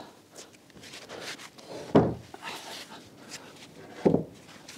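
Two dull knocks on heavy wooden timbers, about two seconds apart, with lighter clicks and rustling between, as someone shifts around working on an old oak beam and its floor joists.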